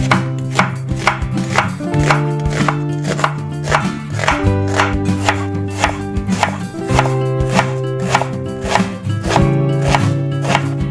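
Chef's knife dicing an onion on a wooden cutting board: a steady run of sharp knocks, about three a second, with guitar background music underneath.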